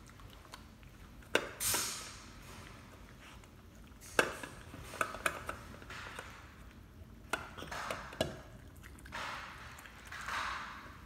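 Bichon Frise eating from a plastic food bowl: several sharp clicks and knocks of muzzle and food against the bowl, with short noisy spells of chewing between them.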